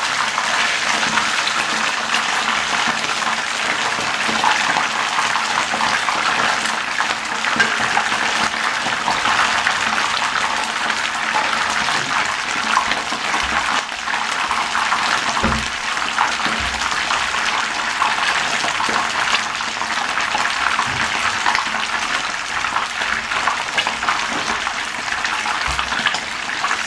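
A whole fish shallow-frying in hot oil in a non-stick pan: a steady sizzle with fine crackles throughout.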